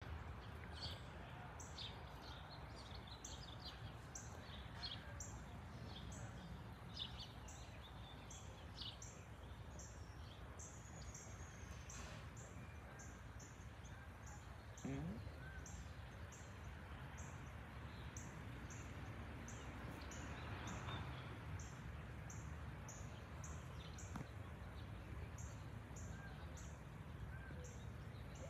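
Faint, steady low rumble of an Airbus A320-232 airliner passing high overhead at cruising altitude, its IAE V2500 turbofans heard from the ground. Over it, birds chirp, mostly in the first third, and a high, short chirp repeats evenly about one and a half times a second.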